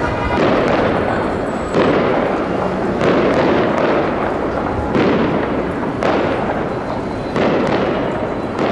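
Aerial firework shells bursting overhead: about six loud bangs, roughly one a second, each trailing off in a long rumble.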